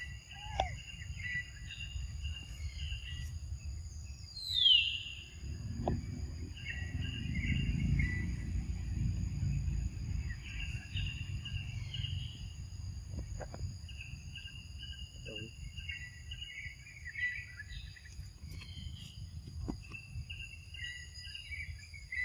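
Outdoor forest ambience: a steady high-pitched insect drone at several pitches with birds chirping throughout, and one falling bird call about four seconds in. A low rumble swells in the middle and fades.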